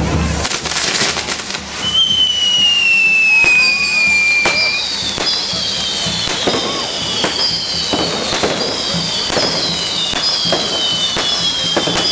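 Correfoc hand-held fireworks: spark fountains hissing with sharp cracks. From about two seconds in, one long falling whistle is followed by a regular string of short falling whistles, roughly one every two-thirds of a second.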